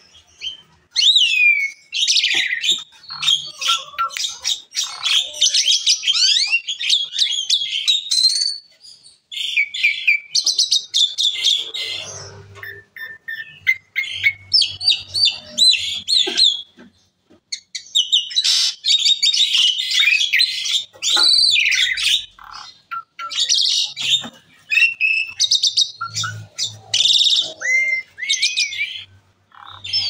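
Asian pied starling (jalak suren) singing in full song: long bursts of rapid, varied whistles, chatter and squeaky notes, broken by short pauses.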